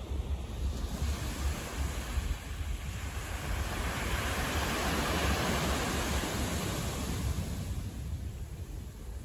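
City street traffic noise: a steady rush with a low rumble that swells to a peak around the middle and fades again, as a vehicle passes.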